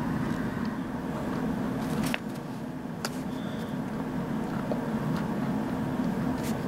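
A steady low machine hum, with a few short clicks.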